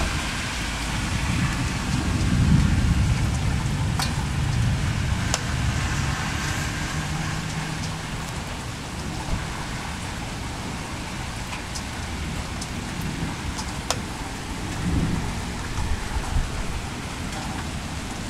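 Steady rain falling during a thunderstorm, with a low roll of thunder that swells a couple of seconds in and slowly dies away. A few sharp ticks stand out now and then.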